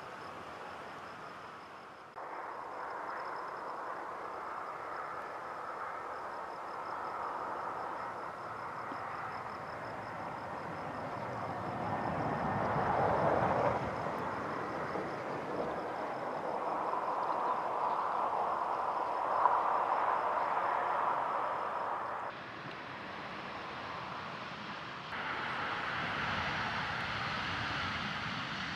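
Airbus A320-214 airliner landing and rolling out on the runway, its CFM56 jet engines heard from beside the airfield as a steady roar that swells to its loudest about halfway through, around touchdown. The level jumps abruptly a few times where the recording is cut.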